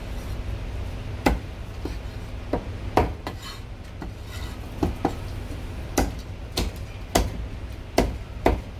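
Cleaver chopping marinated goose on a round wooden chopping block: about ten sharp knocks at uneven intervals, over a steady low hum.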